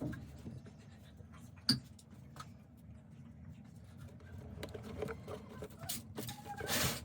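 Hand tool scraping and cutting at the plastic speaker cabinet to enlarge the hole for a charging jack. There is a sharp click a couple of seconds in and a longer rasping stroke near the end.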